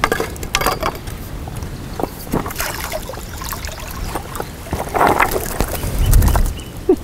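River water splashing and sloshing as a landing net is dipped and a small zander is scooped out, with gusts of wind on the microphone.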